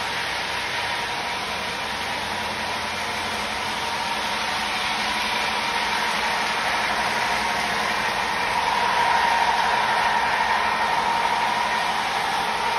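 Model trains running on a layout: a steady rush of wheels on track with a motor hum. It grows louder from about eight seconds in as a model CSX diesel locomotive passes close by.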